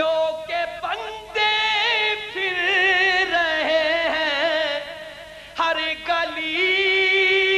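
A man's solo voice, unaccompanied, singing an Urdu manqabat through a microphone. He draws out long wordless vowels with wavering ornaments, breaks off briefly about five seconds in, then holds one long steady note.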